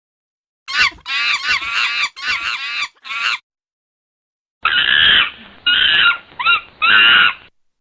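Animal call sound effects: a quick series of short pitched calls for about three seconds, then, after a second's gap, a second, duller-sounding recording of calls in four bursts.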